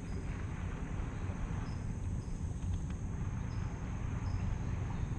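Insects trilling steadily, with short high chirps repeating every half second to a second, over a low steady rumble.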